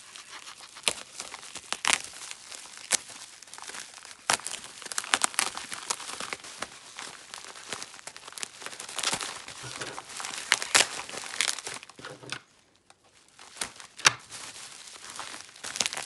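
Plastic bubble wrap crinkling and rustling as it is handled and cut open with scissors, with many sharp, irregular crackles. There is a brief lull about three-quarters of the way through.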